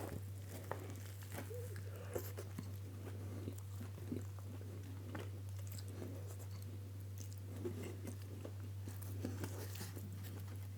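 A person biting into and chewing a crumb-coated vegan southern fried strip: many small, faint crunches and clicks of the breadcrumb coating. A low steady hum runs underneath.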